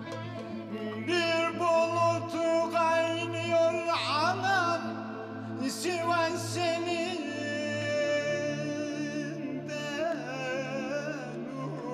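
A man singing a Turkish folk song (türkü) in a held, ornamented solo line with wavering, bending notes, over a steady low drone.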